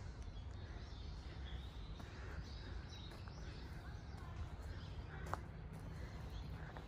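Outdoor woodland ambience: birds chirping here and there over a steady low rumble, with a single sharp tap a little past five seconds in.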